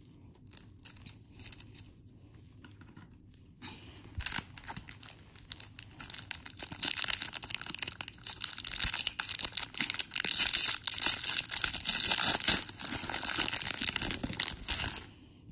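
A Pokémon card booster pack wrapper being torn open and crinkled by hand. It starts about four seconds in, goes on for about ten seconds, and stops abruptly near the end.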